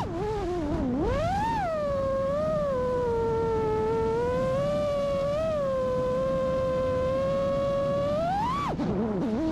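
FPV freestyle quadcopter's brushless motors whining, the pitch rising and falling with the throttle. It swoops up about a second and a half in, holds fairly steady through the middle, then climbs sharply and drops low near the end.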